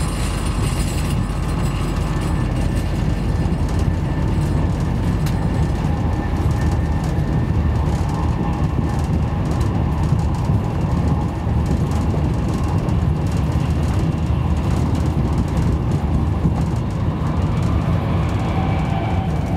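Interior running noise of a Virgin Trains Class 390 Pendolino electric train at speed, heard inside the carriage: a steady low rumble of wheels on rail with scattered light clicks.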